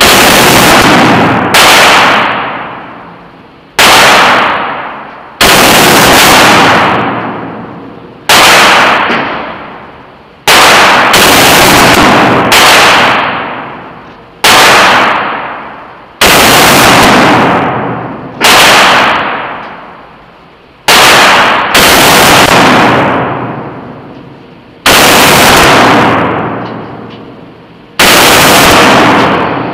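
AK-47 rifle firing single shots in 7.62×39mm, about fifteen shots spaced one to three seconds apart. Each very loud crack clips and rings out for a second or more in the enclosed range booth.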